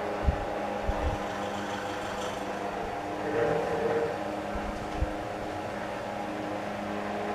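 Wizard Citation 12-inch oscillating table fan running with a steady hum, along with the extra noise of the gears in its oscillation box, which fresh grease has not cured. A few soft low thumps come in the first second and again about five seconds in.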